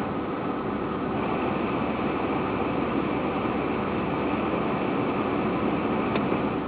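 A vehicle running with a steady, even noisy drone, recorded as an abnormal noise. A faint short tick near the end.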